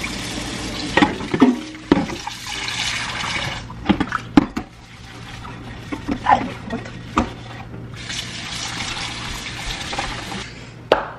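Water running in several spells, stopping and starting, with sharp clinks of dishes and cutlery in between.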